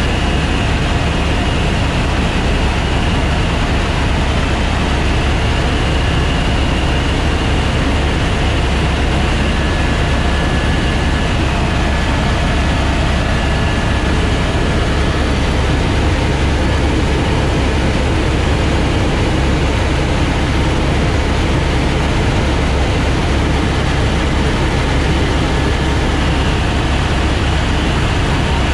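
Airbus AS350 Écureuil helicopter in cruise flight: the steady, loud drone of the main rotor and turbine, deep at the bottom, with a faint high whine held steady above it.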